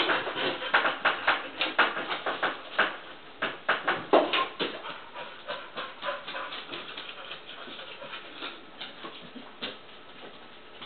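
A wheaten terrier rummaging in a stainless steel kitchen trash can, with fast rustling and clicking from the lid and the garbage. The noise is dense and loud for the first five seconds or so, then thins out and goes quieter.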